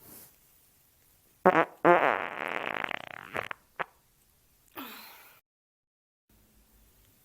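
A run of farts: a short one about one and a half seconds in, then a longer buzzing, pitched fart lasting about a second and a half, and a brief one just before four seconds. A breathy sound follows about a second later.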